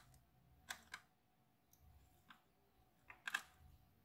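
A few faint, scattered small clicks and taps, the clearest a little after three seconds in: a screwdriver turning the cam lock screw of a laptop's PGA988 processor socket to lock the newly seated CPU.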